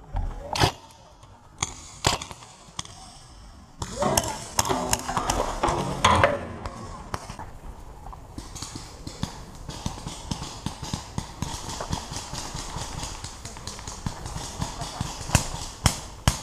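Paintball shots, sharp single pops, a few in the first three seconds and two more near the end. From about seven seconds in, quick running footsteps crunch and rustle through leafy woodland undergrowth.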